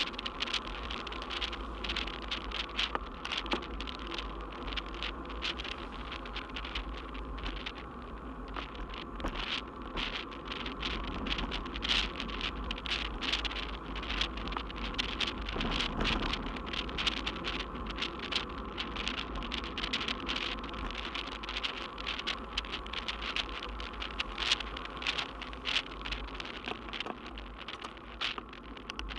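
Bicycle riding along a paved road, heard from a camera on the bike: a steady wind rumble with a dense, rapid rattle and buzz from the bike over the road surface.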